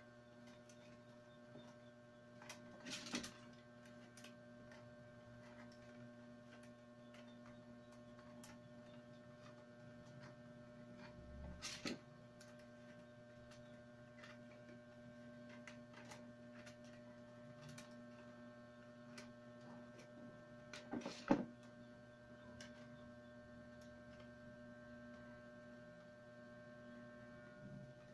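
Steady low electrical hum, with faint crackling and rustling of dry wicker strands being woven by hand; three louder crackles stand out, spread through the stretch.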